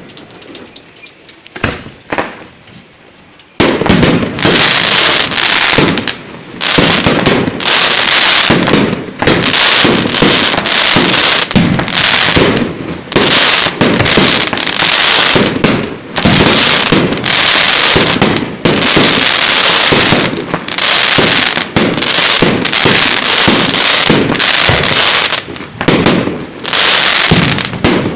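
Fireworks display of aerial shells bursting: a few separate bangs at first, then from about three and a half seconds in a loud, dense barrage of rapid bangs that keeps going.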